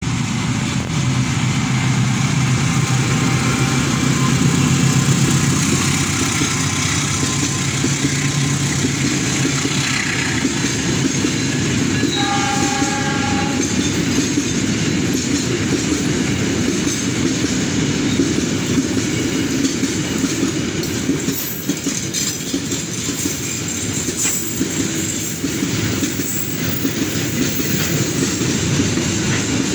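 Diesel locomotive hauling a long train of fuel tank wagons past at close range. The engine is heard at first, then a steady rumble and clatter of the tank wagons' wheels on the rails, with a short horn blast about twelve seconds in.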